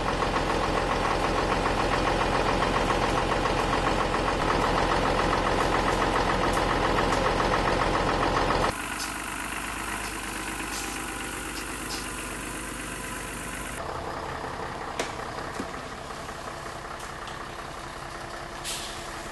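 A vehicle engine runs loud and steady for the first half. About nine seconds in it drops abruptly to a quieter running sound as the Scania bus crawls over a deeply rutted dirt track, with a few sharp clicks or knocks.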